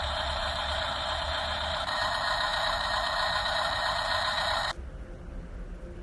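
Remote-control toy truck's engine sound effect, a steady noisy rumble that cuts off abruptly about three-quarters of the way through.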